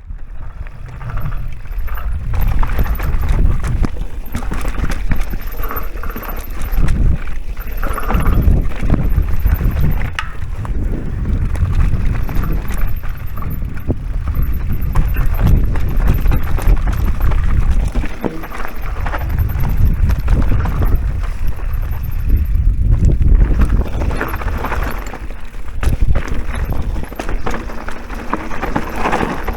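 Electric mountain bike ridden down a dirt trail: tyres rolling over rough ground, with many short knocks and rattles from the bike over bumps. Heavy low noise from wind on the action camera's microphone runs underneath.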